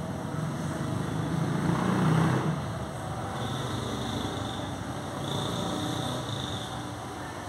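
Street traffic: a passing motor vehicle, its engine and tyre noise swelling to a peak about two seconds in, then fading.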